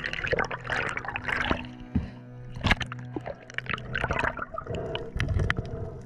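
Background music with steady held tones and a low drone, with water splashing underneath in short sharp bursts.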